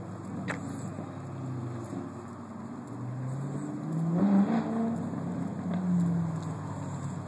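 Car engines running, with a louder, rev-like swell about four seconds in.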